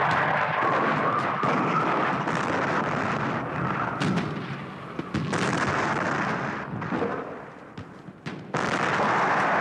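Battle din on an old film soundtrack: a continuous noisy roar with scattered sharp gunshots, thinning briefly near the end before the din returns.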